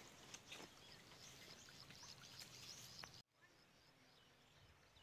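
Near silence: faint outdoor farm-field ambience with a few small ticks and short high chirps. It drops off suddenly about three seconds in to an even fainter hiss.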